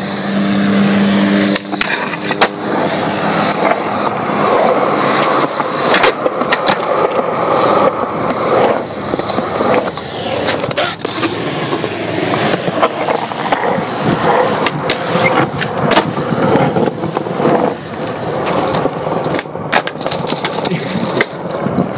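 Skateboard wheels rolling on concrete, a continuous rough rumble, broken by repeated sharp clacks of the board striking the ground.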